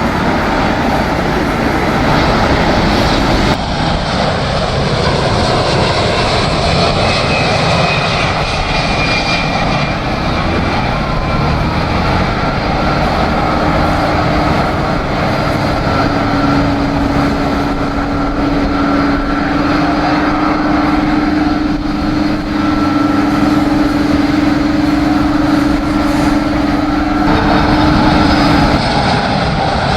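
Boeing 747's jet engines, loud and continuous as the airliner flies low on its landing approach, with a steady high whine over the noise and a tone falling in pitch near the end as it passes.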